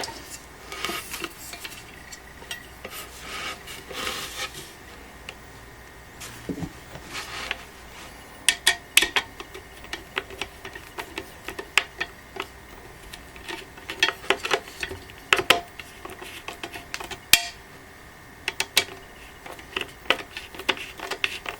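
Screwdriver scraping and clicking against the stand's steel support and screw as the screw is worked in. It starts with short rubbing scrapes, then from about a third of the way in gives many irregular sharp metallic clicks.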